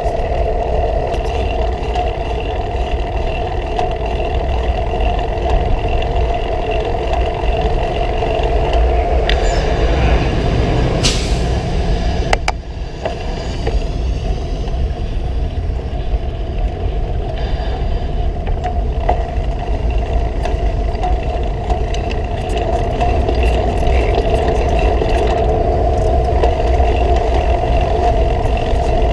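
Steady wind and rolling noise of a bicycle towing a cargo trailer through motor traffic, with a constant hum through it. About eleven seconds in there is a brief high-pitched sound, then a click and a short drop in the noise.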